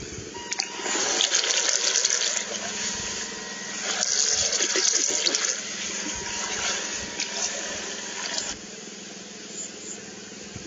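Water splashing and rushing around a small radio-controlled boat running on a creek, with many small splashes through it; the sound cuts off abruptly about eight and a half seconds in.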